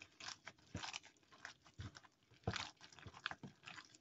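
A hand in a thin plastic glove kneading a wet minced-meat mixture in a bowl: faint, irregular squelches and sticky smacks, with the plastic of the glove crinkling.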